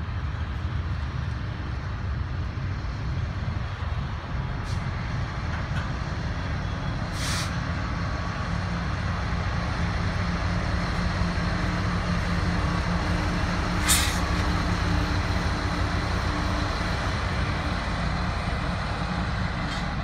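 Freight train rolling past: the steady rumble and clatter of double-stack container cars on the rails, then the rear diesel locomotive, Union Pacific 3019 running as a pushing unit, going by with the steady drone of its engine. Two brief sharp noises come about seven and fourteen seconds in.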